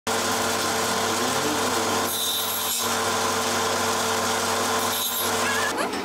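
Table saw running steadily while a wooden strip is fed through the blade, the cut growing harsher and higher about two seconds in and again around five seconds.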